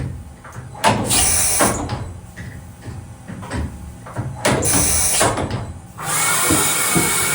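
DMG Mori Seiki DuraVertical 5100 vertical machining center's automatic tool changer cycling: sharp mechanical clunks and three hissing bursts over a low machine rumble.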